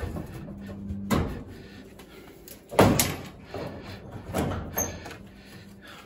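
Knocks and clunks of a Samsung dryer's sheet-metal cabinet panels being lifted off and handled, the loudest a little under three seconds in, with smaller ones about a second in and around four and a half seconds.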